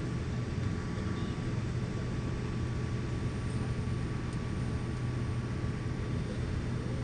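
Steady aircraft cabin drone in flight: engine and airflow noise, even and unchanging, with a low steady hum and a faint higher tone running through it.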